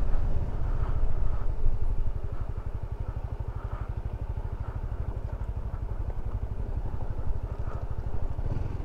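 Maxi-scooter engine running at low speed with a steady low throb as the bike rolls slowly across gravel, easing a little quieter about two seconds in.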